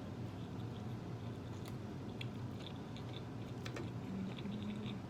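Close-up mouth sounds of someone chewing food: scattered wet clicks and small crunches over a steady low hum.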